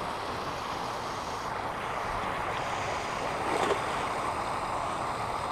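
Steady rushing of flowing creek water, with one short splash about three and a half seconds in as the cast lure lands in the water.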